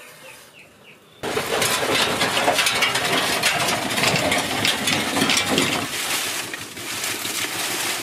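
A vehicle passing close by: a loud, rattling mechanical noise that starts abruptly about a second in and carries on.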